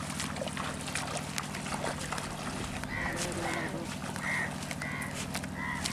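Water sloshing and crackling as several people wade through a shallow river, over a steady low hum. About halfway in, a run of short high calls comes in, five or six of them.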